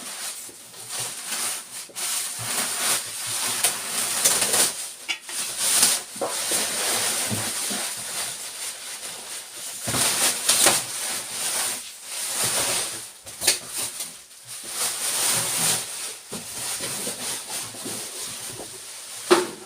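Cardboard packaging of a small refrigerator being handled and worked at: irregular scraping and rustling.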